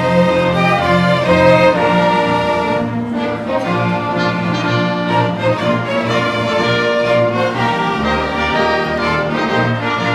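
Instrumental music from a bowed string ensemble, violins over cello, playing a slow tune in sustained chords.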